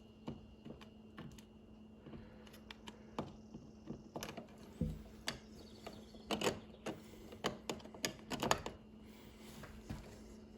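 Irregular small clicks and taps of hand work on a wall switch and its cover plate, a cluster of them in the second half, over a faint steady hum.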